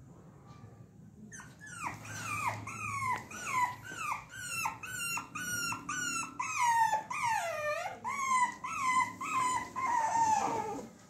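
French bulldog puppy crying in a run of high-pitched yelps, about two a second, each falling in pitch. The yelps start about a second in and end in a longer, drawn-out whine near the end.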